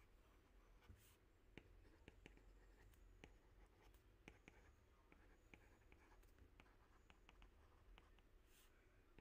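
Nickel-plated alloy stylus nib tapping and sliding on a tablet's glass screen while writing by hand: faint, irregular light ticks, with two short scratchy swishes.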